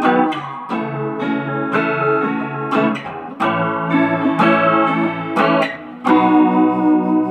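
Squier Bullet Telecaster electric guitar on its neck pickup, played clean with reverb through a Roland Cube amplifier: a run of picked chords, then a chord left to ring about six seconds in.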